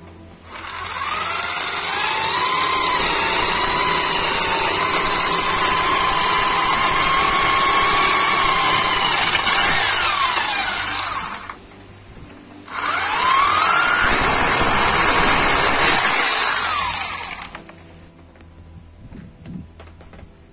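Bosch rotary hammer drilling into a concrete trough wall: two long runs with a short break between, each beginning with a rising whine as the motor spins up.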